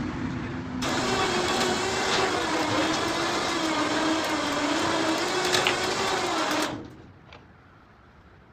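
Motor-driven machinery running under load with a steady, slightly wavering whine, then cutting off abruptly near the end.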